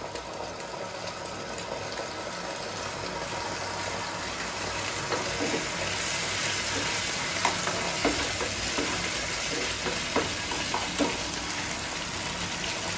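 Poppy-seed and sesame paste sizzling in hot mustard oil in a nonstick frying pan as it is stirred with a metal slotted spoon. The sizzle grows a little louder a few seconds in, with a few light scrapes and taps of the spoon against the pan.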